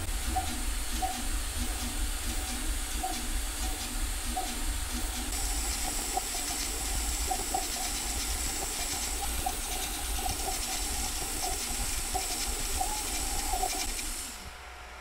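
AnkerMake M5 3D printer printing at high speed: its cooling fans make a very loud steady hiss while the stepper motors chirp in short high tones. About 14 seconds in the noise drops sharply as the print ends, leaving a quieter fan hum.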